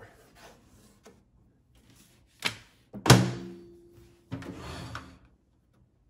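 Sharp Carousel countertop microwave's door being shut: a sharp click, then a loud thunk with a short metallic ring. A brief rustling noise follows near the end.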